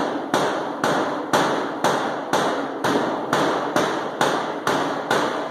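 Rubber mallet lightly tapping the edge of a sheet-metal wheel tub, a steady run of about a dozen light taps at roughly two a second. The taps are slowly folding a 1-inch lip over the mating panel's edge to lock the two pieces together.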